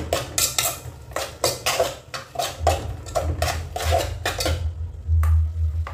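Spoon knocking and scraping against the inside of a steel cooking pot while stirring sautéing onions, in a quick run of clinks about four a second that stops about four and a half seconds in. A low rumble follows near the end.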